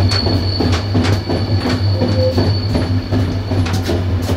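Passenger train coaches running on the line, wheels clicking over rail joints in a repeated clickety-clack over a steady low rumble. A thin, steady high-pitched wheel squeal runs alongside and stops about three and a half seconds in.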